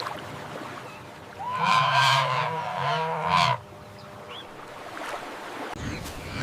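Flamingo giving one nasal, goose-like honking call of about two seconds, starting about a second and a half in.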